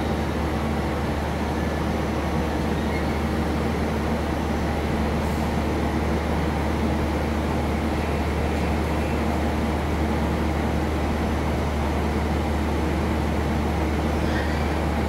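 Steady low hum and rumble of heavy industrial machinery with an even rushing noise over it, unchanging throughout.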